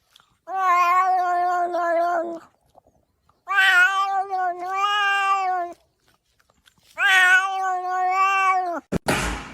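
Domestic cat yowling: three long, drawn-out calls of about two seconds each, with short pauses between them.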